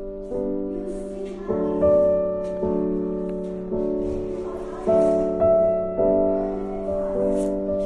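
Background music: gentle piano chords, a new chord struck about every second and left to fade.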